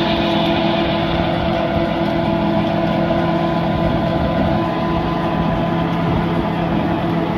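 Tractor engine running steadily under load, driving a PTO-powered rotary tiller that churns through dry soil. The result is a constant mechanical drone with several steady held tones over gritty noise.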